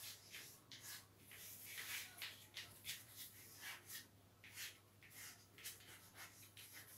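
Chalk scratching on a blackboard as words are handwritten: many short, faint strokes with brief pauses between them.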